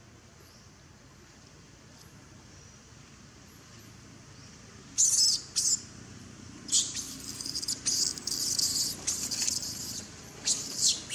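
Baby long-tailed macaque screaming in distress: faint at first, then from about five seconds in a string of shrill, high-pitched shrieks in quick runs.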